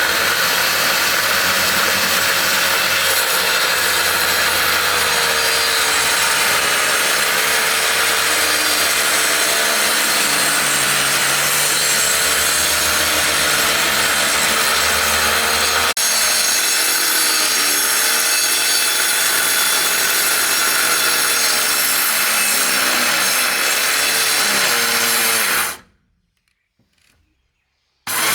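Power woodworking machine cutting through wood: a loud, steady noise whose motor pitch wavers under the load. It cuts off suddenly near the end.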